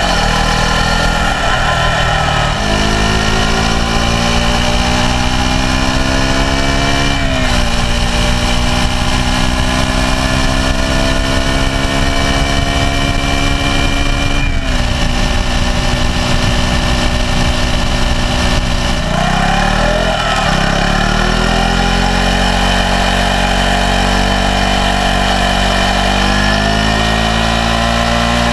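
2012 KTM 125 Duke's single-cylinder four-stroke engine through its stock exhaust, under way and pulling up through the gears. The engine note climbs slowly and drops suddenly at gear shifts a few seconds in, about seven seconds in and about fifteen seconds in. Around twenty seconds in the revs fall away and then climb again, with another shift near the end.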